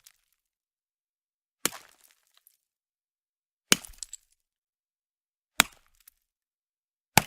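Hammer striking solid ice: four sharp separate impacts about two seconds apart, the last near the end, each followed by a short scatter of cracking ticks.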